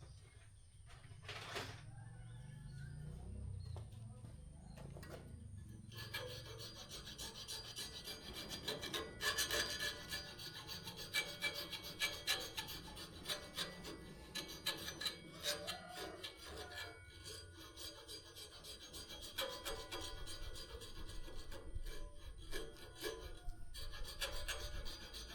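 A file worked by hand on a homemade knife cut from an old saw blade: rapid rasping strokes that start about six seconds in and go on with short breaks. Before them there is a low rumble and a single knock.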